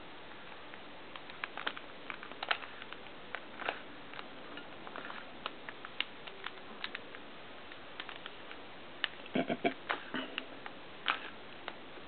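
A white-bodied 3x3 Rubik's cube being turned by hand: irregular plastic clicks and clacks as its layers snap round, with a quick run of clicks about nine seconds in, over a steady faint hiss.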